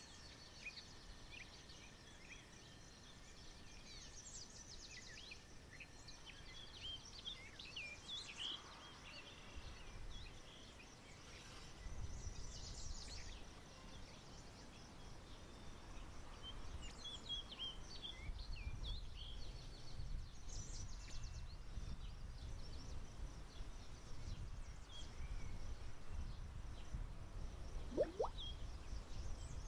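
Faint outdoor ambience of small birds chirping and twittering here and there. A low rumble sets in about twelve seconds in, and a short rising whistle comes near the end.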